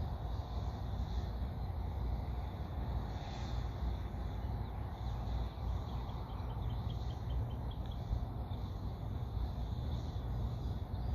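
Outdoor background at the pilot's spot: a steady low rumble, with a faint bird trilling briefly about halfway through.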